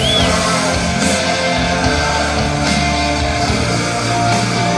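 Rock music playing.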